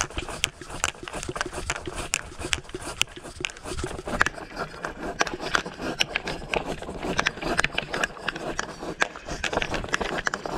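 Fiskars Power Lever pole saw's pruning blade sawing through a thick tree limb, a continuous run of rasping back-and-forth strokes of the saw teeth in the wood.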